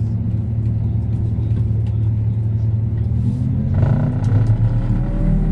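Tractor engine running steadily, its revs rising about three to four seconds in as it is worked harder.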